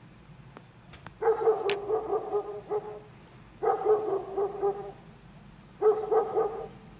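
A dog barking in three runs of quick barks, each lasting about a second, with short pauses between.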